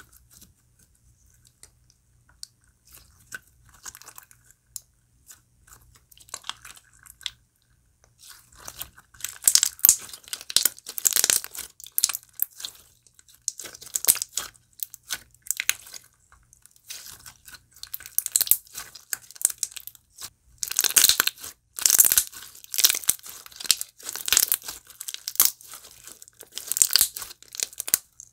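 Jelly cube slime with crushable cubes being squeezed and pressed by hand, crunching and crackling. A few soft clicks at first, then dense crunching in bouts from about nine seconds in.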